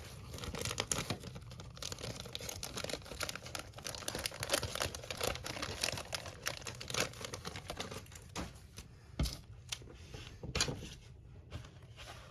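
Small plastic bags of parts crinkling and rustling as they are handled, with quick light clicks and taps of small plastic pieces; the crackling thins out to a few scattered clicks in the last few seconds.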